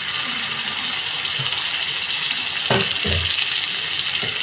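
Chopped potatoes frying in hot oil in a wok, a steady sizzle, with a couple of dull knocks about three seconds in.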